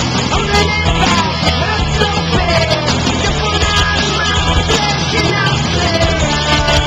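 Loud rock music with a singing voice, playing steadily.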